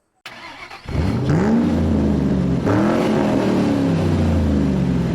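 A car engine being revved twice, the pitch rising sharply each time, then sinking slowly as the revs die back down.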